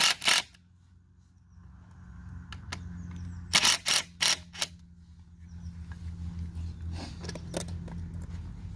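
A DeWalt cordless drill-driver run in short trigger bursts: two at the start, four in quick succession about halfway through and a few fainter ones near the end, over a low background rumble.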